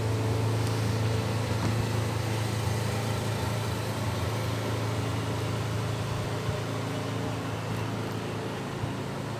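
Steady low hum over a constant hiss, with a few faint clicks.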